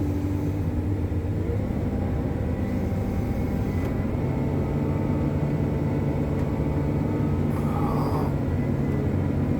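Hitachi 370 wheel loader's diesel engine running steadily under load, its note stepping up about four seconds in.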